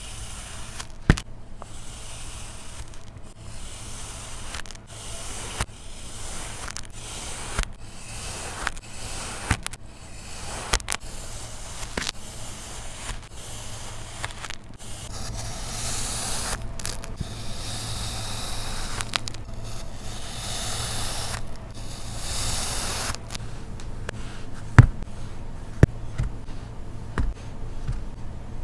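Kinetic sand being cut and worked: a run of short, sharp clicks and scrapes, with a longer stretch of steady hiss around the middle and a few louder knocks near the end.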